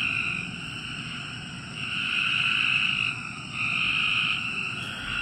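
A dense chorus of calling frogs at night. It is a continuous high-pitched trilling that swells louder and fades back in waves every second or two.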